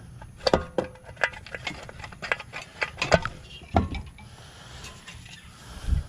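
Irregular clicks and knocks of tools and metal parts being handled while a small go-kart engine is taken apart, the sharpest about three seconds in and a duller knock near the end.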